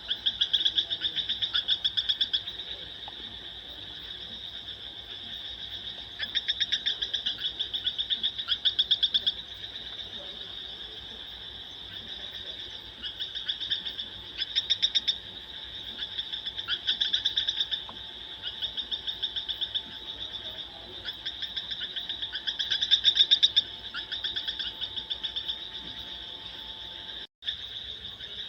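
An animal calling in rapid pulsed trills, repeated in bouts of one to three seconds each, over a steady high-pitched drone. There is a brief dropout near the end.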